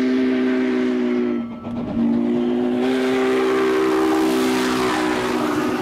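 Spokane, Portland & Seattle 700, a 4-8-4 steam locomotive, blowing its chime whistle in two long blasts, several notes sounding together, with a short gap between them about a second and a half in. From about three seconds in, the rumble of the passing train grows loud under the whistle, and the whistle's pitch drops slightly as the engine goes by.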